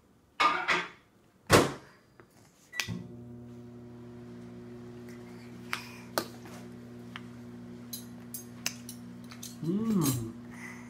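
A sharp knock about a second and a half in, then a short beep and a microwave oven starting up and running with a steady hum. Small clicks of a spoon against a metal bowl, and near the end a baby's short vocalization that rises and falls in pitch.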